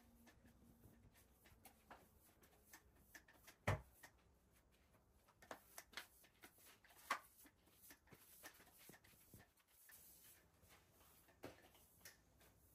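Faint scratchy strokes and light clicks of a Muji long-handled broom sweeping scattered baking soda across a tiled floor, with one sharper knock a little under four seconds in.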